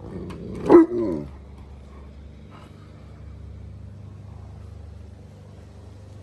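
A husky-type dog gives one short, loud talking howl about a second in, its pitch rising and then falling. A steady low hum runs underneath.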